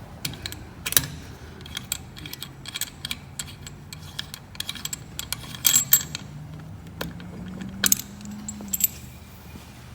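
Irregular metallic clinks and knocks of a high-pressure breathing-air fill hose being uncoupled from its fittings after bleed-down, a few louder clanks among them, over a faint low hum.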